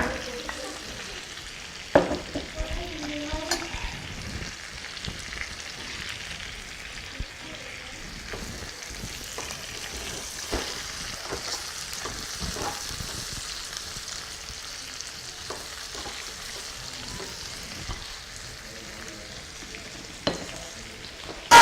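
Chicken leg pieces and fried garlic sizzling in oil in a frying pan, with a steady hiss. A spatula stirs and scrapes them, knocking against the pan now and then, with a sharp knock about two seconds in.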